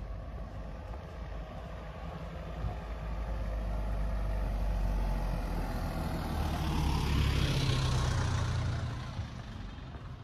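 A van driving past: low engine rumble and tyre hiss build up, are loudest about seven to eight seconds in, then fade away.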